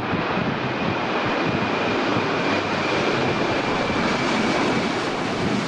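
Airplane engine sound: a steady jet-like rushing noise with a faint high whine, cutting in and out abruptly.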